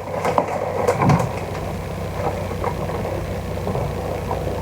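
A steady low mechanical hum, like a small motor running, with a few light knocks in the first second or so.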